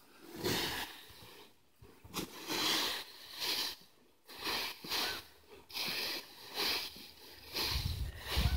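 Leaf rake dragged through a pile of dry fallen leaves: repeated rustling swishes about a second apart.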